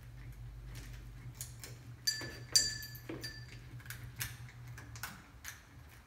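Kenmore ceiling fan running with a steady low hum and light, irregular ticking. A few seconds in come several sharp ringing clinks, like metal tapping glass. Near the end the hum drops away as the light kit goes off.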